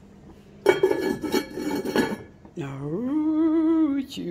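Heavy enamelled cast-iron lid of a Le Creuset pot being set on and settled against the rim, clattering and scraping for about a second and a half. Then a voice holds one long, rising note.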